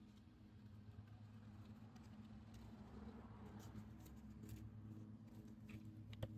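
Near silence: a faint steady hum with a few faint clicks of small parts being handled.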